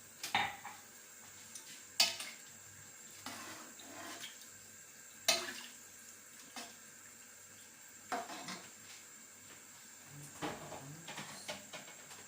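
Kitchenware clanking against a cooking pot: four sharp metallic knocks a couple of seconds apart, with lighter taps and scrapes between them.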